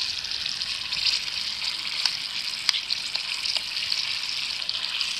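Hot oil in a pot sizzling steadily as oliebollen, Dutch yeast-dough fritters, deep-fry in it, with a few short clicks about two to four seconds in.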